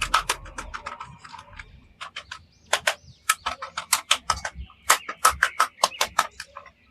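Rapid, irregular sharp clicks and taps of plastic toys and packaging being handled, in quick clusters with short pauses.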